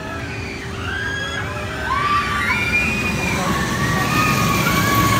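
Voices of a crowd at some distance, with high, drawn-out cries gliding up and down. One cry is held for about three seconds in the second half. Underneath is a steady low noise.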